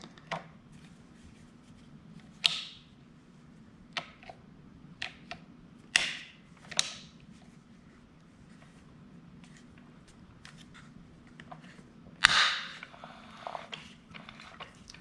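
Hand tools, including locking vice grips, clicking and clanking against metal on the motorcycle: a few scattered sharp clicks and knocks, the loudest about twelve seconds in with a short ring, over a faint steady hum.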